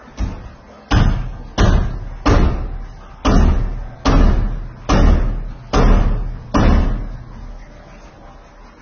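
Hammer blows during building of a concrete-block kitchen counter: nine heavy strikes a little under a second apart, the first lighter, each with a short echoing tail.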